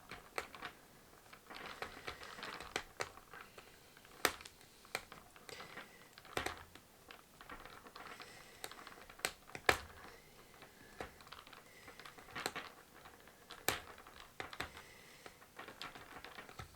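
Multi-tool screwdriver working at a screw in a plastic toy's battery door: irregular small clicks, scrapes and plastic handling noises, with a few sharper knocks.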